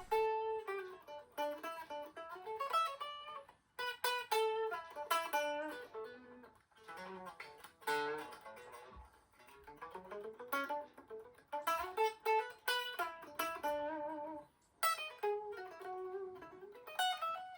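Gibson ES-335 semi-hollow electric guitar played unplugged: picked notes and chords in short phrases with brief pauses between them. The strings ring out resonant and snappy, with a bright high-end ring.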